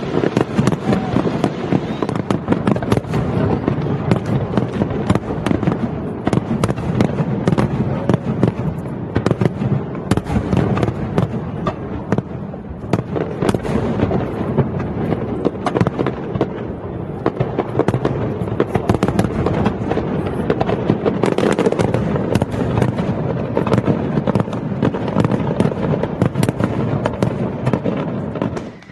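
Fireworks display: a dense, continuous barrage of bursting shells and crackles, many bangs a second, stopping abruptly near the end.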